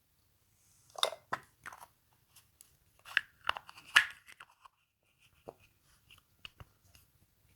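Slime being squeezed and worked by hand, giving irregular crackling clicks and pops. They come thickest about a second in and again from about three to four and a half seconds in, then thin out.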